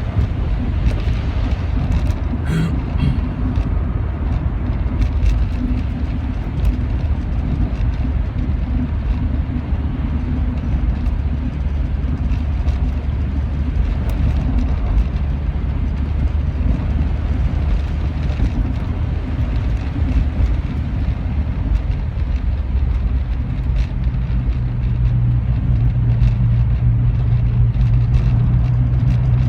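Rover 45 running on the move, engine and road noise heard from inside the cabin as a steady low rumble. A few brief clicks come about two seconds in, and a stronger steady low drone sets in near the end.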